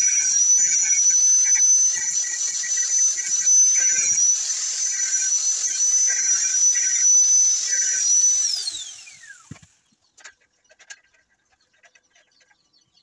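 Electric angle grinder running with a steady high whine as its disc grinds a steel square-tube frame, the grinding noise pulsing as the disc is worked against the metal. About eight and a half seconds in it is switched off, and the whine falls in pitch as the disc spins down.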